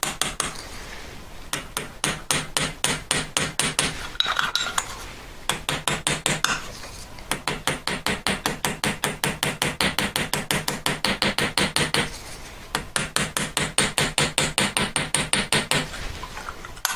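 Small hammer tapping rapidly on the end of a silver hinge pin, spreading it into a domed rivet head. The taps come in quick even runs of about six a second, with short pauses between runs.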